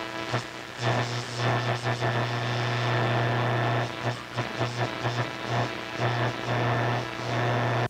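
A loud low hum that keeps cutting in and out many times, with a rushing hiss over it.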